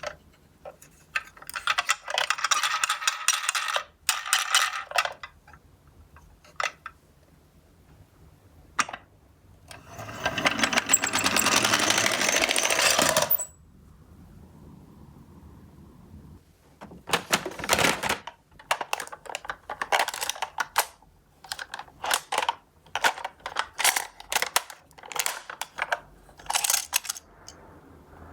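Small die-cast toy minicars clicking and clinking as they are handled and knock against each other and the cardboard, with a continuous rattle about three and a half seconds long near the middle as a minicar rolls down a slope.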